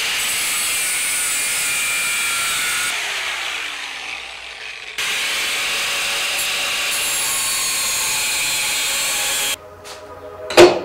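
Handheld angle grinder cutting into a motorcycle part. Its noise dies away and its pitch falls as it spins down, then it cuts again at full speed from about halfway through. Near the end come a few clicks and one sharp, loud knock.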